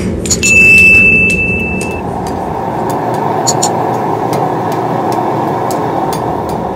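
Forge burner running with a steady rushing noise, with occasional light metallic clinks of tongs on the steel knife blanks. A bell-like notification ding rings out about half a second in and holds for about a second and a half.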